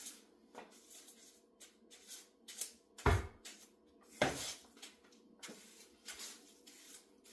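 Kitchen cleaning handling sounds: a string of short rustles and scrapes, with two loud knocks about a second apart near the middle.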